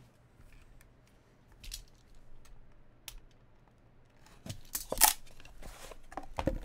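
A box cutter slitting the seal tape on a trading-card box, and the box being opened and its inner card box lifted out. A few faint clicks at first, then a cluster of sharp scrapes and snaps from about four seconds in, loudest around five seconds.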